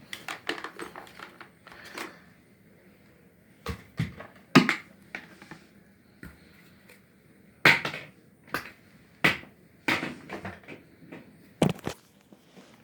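Objects being handled and set down: a scattered series of sharp knocks and light clatters, a few of them louder, with no motor running.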